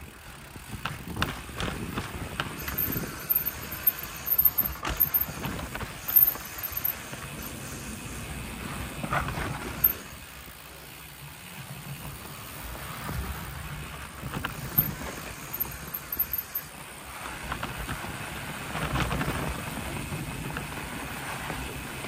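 Mountain bike riding over a rough dirt trail: irregular rattles and knocks over a steady rolling rumble.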